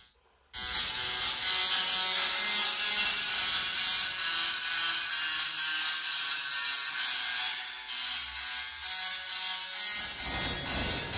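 Small musical Tesla coil's spark discharge buzzing and crackling harshly as its arc strikes a paper instant-noodle cup, pulsing about three times a second with faint melody notes underneath. It starts after a brief silent gap.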